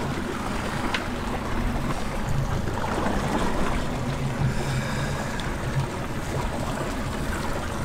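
A boat's engine running steadily, with wind and water noise.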